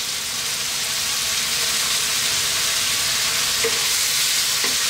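Pork strips and sliced onion sizzling steadily in a hot wok as oyster sauce hits the pan, with a wooden spatula starting to stir the meat near the end.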